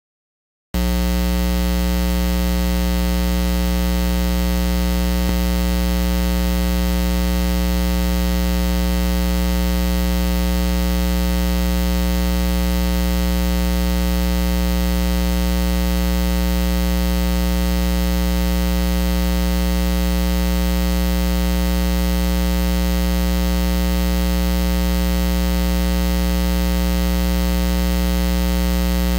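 Loud, steady electrical mains hum: a buzz with a long series of overtones, starting just under a second in and holding unchanged.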